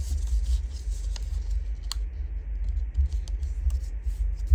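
A square of patterned cardstock being folded and creased by hand on a tabletop: paper scraping and rustling with a few sharp clicks, over dull low bumps of hands pressing on the table.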